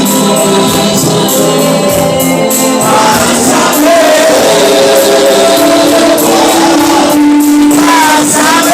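Gospel worship music: a choir singing with a band, with tambourine-like percussion keeping the beat.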